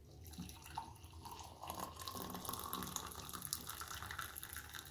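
Hot ginger milk tea pouring in a stream from a thermos flask into a ceramic mug, a steady splashing trickle whose pitch rises as the mug fills.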